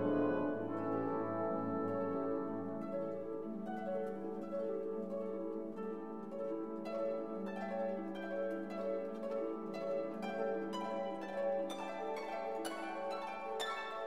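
Instrumental background music: plucked string notes over sustained orchestral tones, the plucked notes coming quicker near the end.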